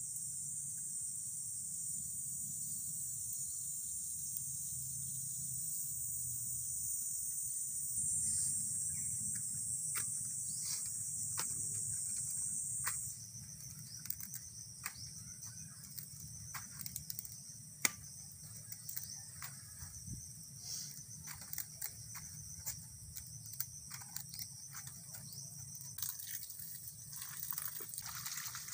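A steady, high-pitched chorus of insects chirring, which cuts off abruptly about halfway through. After that the insects are fainter, with scattered small clicks and rustles of handling.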